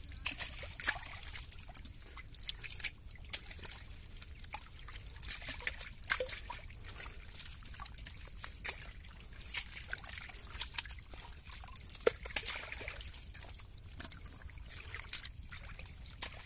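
Hands rummaging and sloshing through mud, weeds and shallow water in a fishing net, with irregular small splashes and squelches and water trickling.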